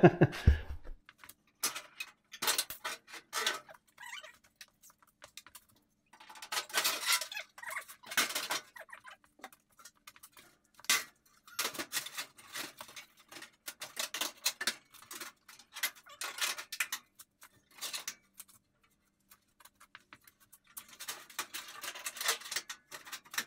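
Scattered clinks, taps and scrapes of metal being handled as an old steel rear fender is test-fitted against a pickup bed, coming in short clusters with brief gaps.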